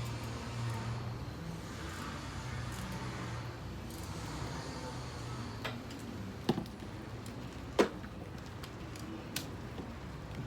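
Steady outdoor background noise with a low hum fading through the first half, then a few sharp knocks, the loudest near three quarters of the way through.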